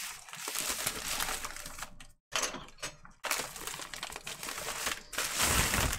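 Plastic padded mailing envelope crinkling and rustling as it is handled, in several stretches with brief pauses, loudest near the end.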